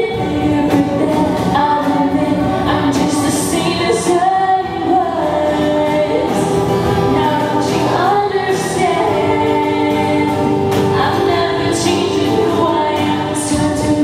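Female vocal group singing a song in several-part harmony, with long held chords.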